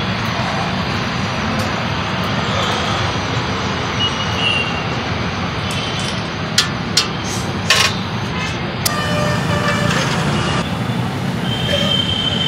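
A bhatura deep-frying in a kadai of hot oil: a steady sizzle, with a few sharp metal clinks about halfway through.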